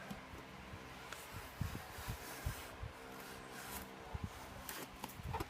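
A cardboard laptop box being cut open and handled: scattered faint scrapes, rustles and light knocks, with a few brief sharper scraping strokes.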